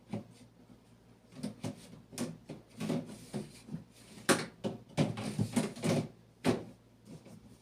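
Irregular knocks and clatters from a new refrigerator being handled: its door and plastic fittings bumping and opening, a dozen or so knocks, loudest about four and six and a half seconds in.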